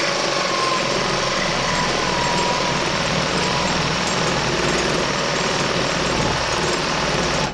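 Cordless reciprocating saw cutting a slot into a seized brake or clutch pedal bush from a 1955 Fordson Major, running steadily under load, then stopping abruptly at the end. The slot is cut to collapse the bush so it can be knocked out of the pedal.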